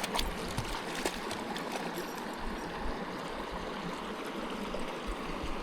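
Shallow river water running in a steady rush, with a few small clicks near the start.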